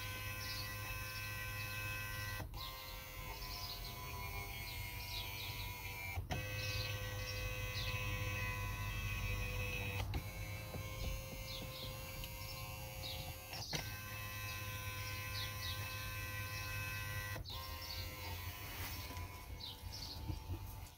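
Electric drive motor and mechanism of a VW Passat B8 ergoComfort massage seat running, heard with the seat-back cover open: a steady whine of several tones over a low hum, with a click about every four seconds.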